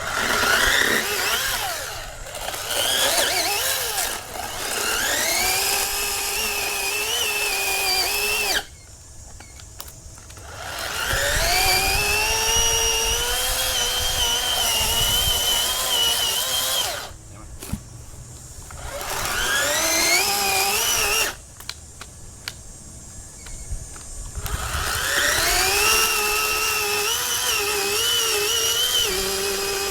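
Greenworks 40V brushless cordless chainsaw's electric motor whining, rising in pitch as it spins up and wavering as it runs. It is started and stopped several times: it cuts off abruptly three times and winds up again each time.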